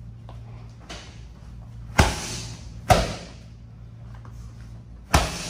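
Rubber medicine balls slamming, with loud sharp thuds that echo in a large gym. A faint knock comes about a second in, then loud impacts at about two seconds, three seconds and near the end.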